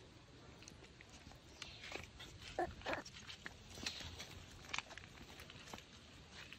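Faint, short dog sounds among scattered clicks and taps.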